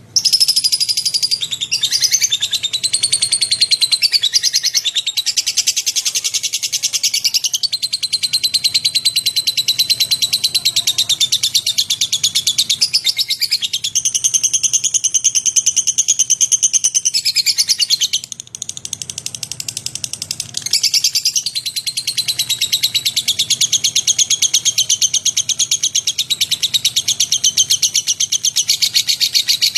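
Lovebird singing a long, rapid chattering trill of high notes that starts abruptly and runs on with hardly a break, dipping briefly in level about two-thirds of the way in.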